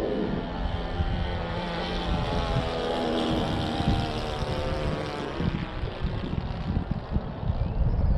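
A .70 four-stroke nitro model aircraft engine running in flight as the radio-control biplane passes overhead, its pitch bending downward a few seconds in as it flies past.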